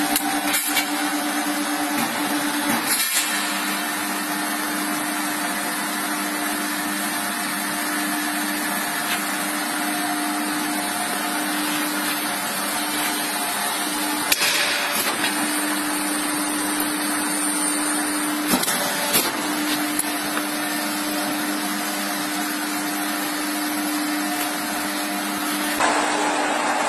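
CNC tube bending machine running while it bends tube: a steady motor hum with hiss, broken by a few sharp clicks and knocks from the bending head, the loudest about fourteen seconds in.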